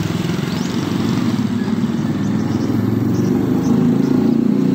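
A motor vehicle engine running steadily nearby, getting louder near the end.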